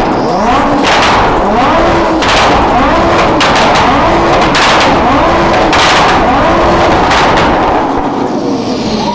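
Supercar engine revved hard over and over, about once a second, each rev climbing quickly and holding briefly, with loud exhaust backfire bangs between the revs. The revving dies away near the end.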